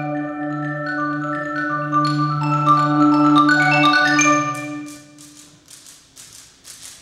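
Mallet percussion ensemble of marimbas, xylophones and vibraphone playing held chords with sustained low notes. About four and a half seconds in the music drops away to a quiet passage of light, quick taps, about five a second.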